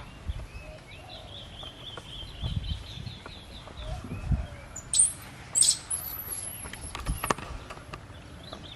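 High-pitched animal calls: a fast run of chirps at about eight a second, then a few shrill, very high squeals about five seconds in, over low rustling.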